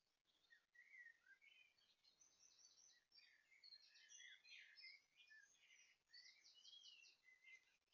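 Faint songbirds singing, several overlapping, with chirps, whistled phrases and quick trills: an early dawn chorus.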